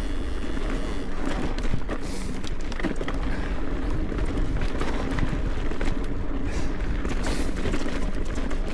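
Mountain bike running fast down a rough dirt trail: a steady rumble of wind and tyres on loose ground, broken by many quick rattles and knocks from the bike over bumps and stones.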